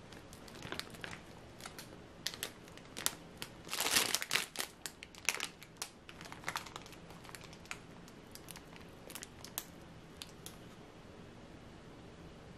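Thin plastic bags crinkling as they are handled, in short scattered crackles. The crackling is loudest about four seconds in and dies away after about ten seconds.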